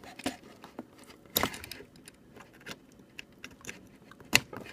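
A USB cable being unplugged and plugged back in: a few sharp plastic-and-metal clicks and rattles, the loudest click near the end.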